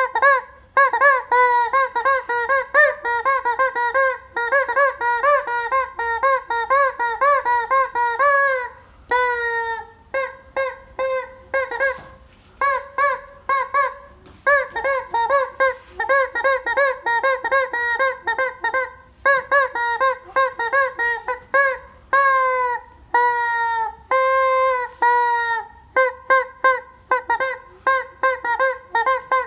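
Squeaky rubber chicken toy squeezed over and over: rapid runs of short, honking squawks, broken now and then by longer squawks that slide down in pitch.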